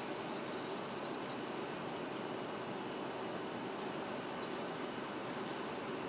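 Chorus of cicadas singing, a steady, dense, high-pitched shrilling that never breaks.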